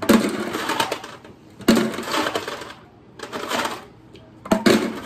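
Ice cubes clattering into a gallon water jug, in four bursts about a second and a half apart.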